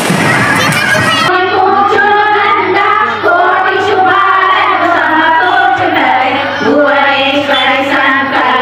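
Group of women singing a devotional song together, read from song books, with a microphone in use.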